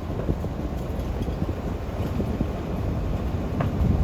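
Pickup truck carrying a truck camper driving along a road: a steady low rumble of engine and tyres with scattered small knocks and rattles, and a sharper click near the end.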